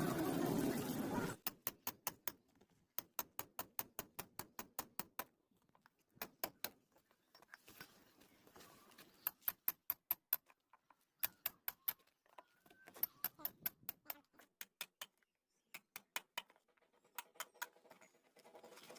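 A loud noisy rush for about the first second, then runs of sharp clicks or taps, several a second, broken by short pauses.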